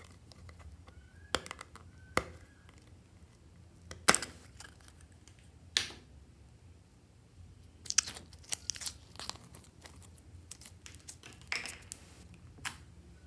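A small plastic tub of jelly slime being opened by hand and the slime pulled out: a series of sharp plastic clicks and sticky pops, the loudest about four seconds in. This is followed by a quick run of clicks and crackles as the slime is pressed into a bowl of other slimes.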